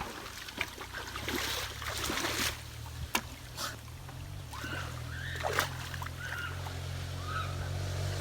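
A low, steady engine hum sets in about a second in and holds, with water splashing and a few sharp clicks over it.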